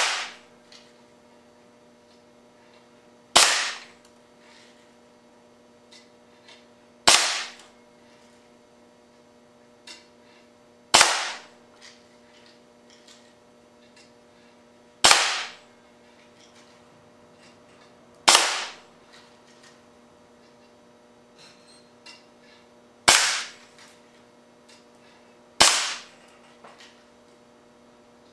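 Solenoid-valve air cannon on 125 PSI shop air firing quarter-inch steel BBs into an LCD monitor: about eight sharp shots, a few seconds apart, each trailing off over about half a second.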